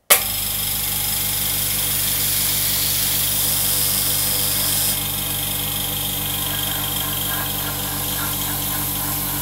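Implotex 850 W oil-free silent air compressor switched on, starting suddenly and running with a steady motor hum and a high hiss of air. About five seconds in the hiss drops away and it runs a little quieter as its safety valve closes automatically and it settles into filling the tank.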